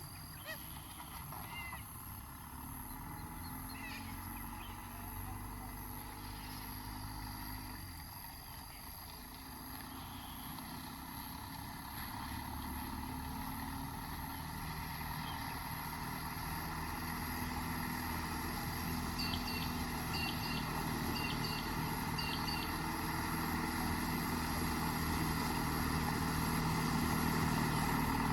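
Holden Rodeo's 2.8 litre 4JB1T turbo-diesel engine running under way, its note shifting in pitch now and then and growing steadily louder. A few short high chirps come about two-thirds of the way in.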